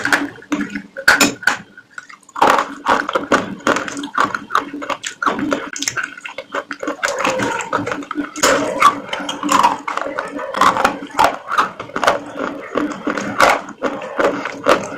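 Close-miked chewing of crunchy food: rapid, irregular crunches and crackles with wet mouth sounds.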